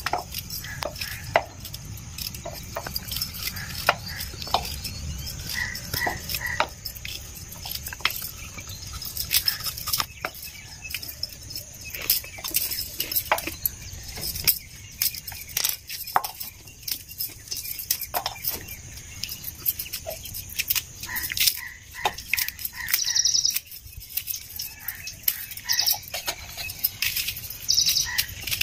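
Irregular clicks, taps and knocks of kitchen food preparation, several a second and uneven, over a low steady hum.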